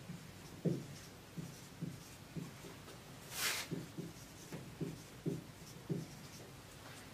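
Marker pen writing on a whiteboard: a faint, uneven string of short soft taps and strokes, with one brief hiss about three and a half seconds in.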